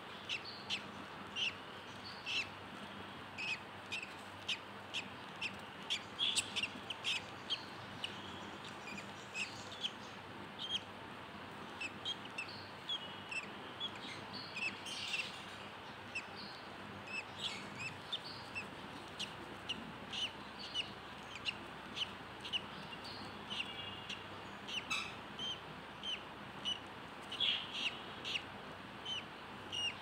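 Budgerigar chirping: short, high, separate peeps repeated about once or twice a second over a faint steady hiss.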